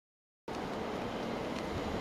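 Silence, then about half a second in a steady outdoor background noise starts abruptly: wind on the microphone over a low distant rumble.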